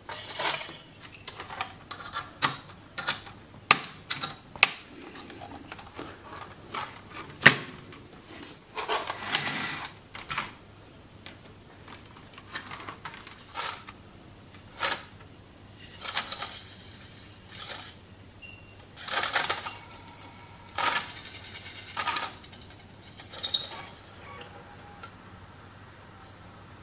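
Irregular clicks, taps and small knocks of hands handling the open Blu-ray player's disc drive and its small plastic parts, with a few longer scraping rustles.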